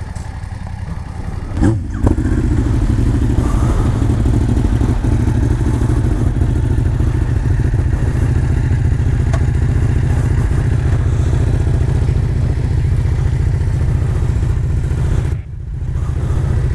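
Motorcycle engine running steadily. A short knock comes about two seconds in, after which the engine sound gets louder. The sound drops out briefly near the end.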